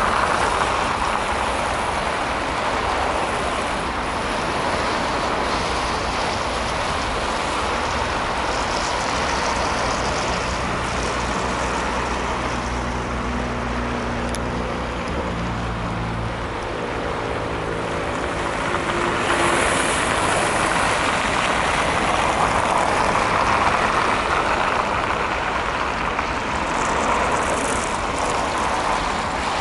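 City road traffic: a steady rush of passing vehicles, with a heavy engine's low hum standing out for several seconds around the middle.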